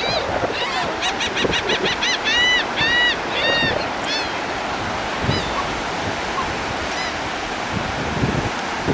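Seagulls calling over a steady background rush: a quick run of short, arched cries for the first four seconds or so, then a few single cries spaced out after that.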